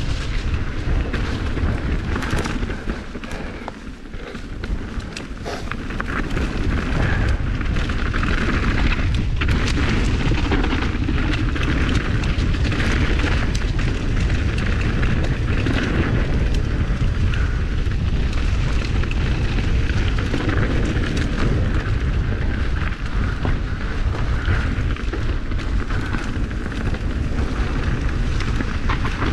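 Mountain bike riding fast down a wet, muddy dirt trail: heavy wind noise on the camera's microphone, with tyre noise on the dirt and scattered clicks and rattles from the bike.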